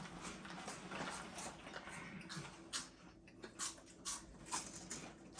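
Mouths chewing cheese balls, with small irregular crunches and crackles.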